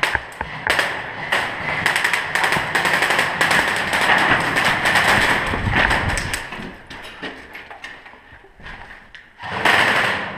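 Quick footsteps over a debris-strewn concrete floor with the rustle and knocking of gear and clothing against the camera, dense for the first several seconds, then fading. A short loud rustle comes near the end.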